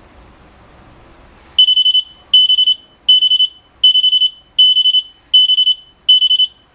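A four-channel kitchen timer's alarm going off: a loud, high-pitched electronic beep in quick groups of about four pulses, repeating roughly every three-quarters of a second, starting about a second and a half in. This is the signal that a countdown has run out.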